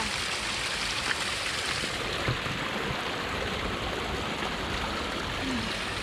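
Small mountain spring trickling and splashing down a mossy rock face and into cupped hands, a steady rush of running water that turns a little duller about two seconds in.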